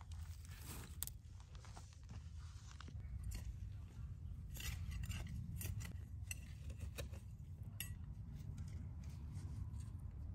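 Weeds and dry grass being pulled up and handled by gloved hands: scattered crisp snaps, crunches and rustles, over a steady low rumble.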